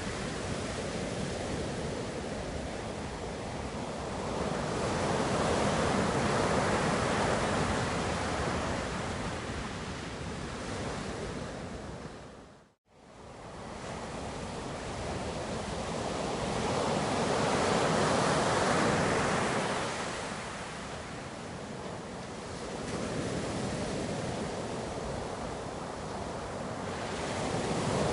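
Ocean surf: waves breaking and washing in, rising and falling in slow swells. About halfway through, the sound fades out for a moment and comes straight back.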